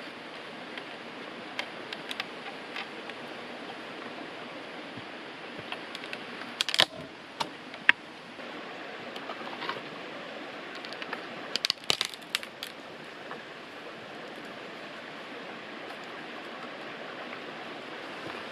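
Scattered sharp clicks and knocks of wooden sticks being split and handled over a steady background hiss, with a few louder clusters of knocks around the middle and again about two-thirds of the way through.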